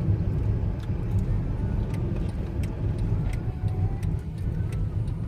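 Steady low rumble of a car driving, heard from inside, with road and engine noise throughout.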